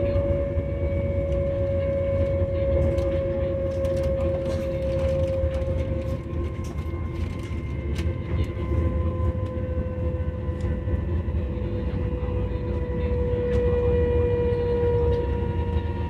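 CRH1A electric multiple unit under way, heard from inside the coach: the traction motors and their inverter make a steady whine that slides slowly down in pitch, over a low rumble from the wheels on the track.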